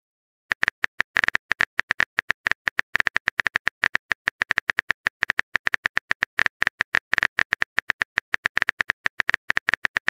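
Rapid, uneven run of phone-keyboard tap clicks as a chat message is typed out letter by letter, starting about half a second in.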